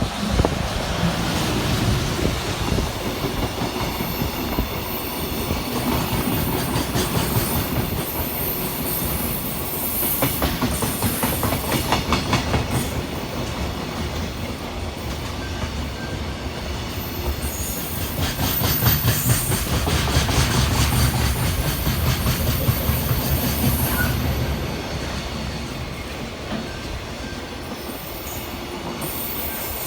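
A freight train hauled by a JR Freight EF210 electric locomotive passing, its wagon wheels clattering over the rail joints in a quick, regular rhythm over a steady rumble. The clatter swells to its loudest a little past halfway and eases near the end.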